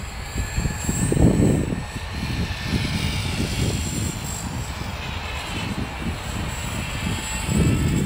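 CopterX 450 electric RC helicopter flying, the whine of its brushless motor and rotors gliding up and down in pitch as it manoeuvres. Gusts of wind buffet the microphone with a low rumble, loudest about a second in and again near the end.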